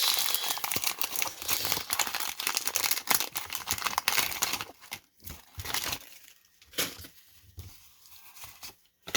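Paper wrapper of a baseball card wax pack being torn open and crinkled, dense crackling for about four seconds, then lighter rustling and a few clicks as the cards are handled.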